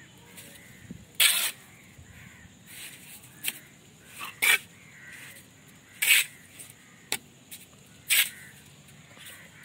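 Mason's trowel scraping and slapping cement-sand mortar onto the top of a brick course: several short, sharp scrapes a second or so apart.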